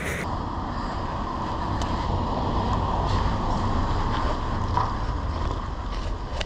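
Steady wind rush and road noise from riding a bicycle through traffic, with wind buffeting the action camera's microphone.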